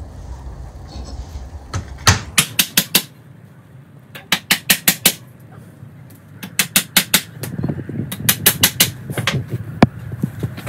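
Claw hammer driving long round wire nails through wooden slats, in quick runs of sharp taps several times a second with short pauses between the runs.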